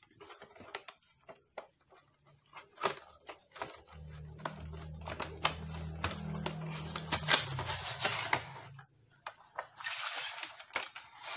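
Cardboard retail packaging being opened by hand: rustling, scraping and sharp little clicks as the inner card slides out of the box. Near the end comes a louder rustle as a clear plastic tray is pulled free.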